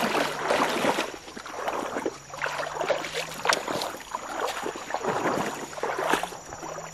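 Bare feet splashing through shallow stream water for about a second, then quieter wet footsteps and scattered knocks on a muddy bank, over a faint steady insect drone.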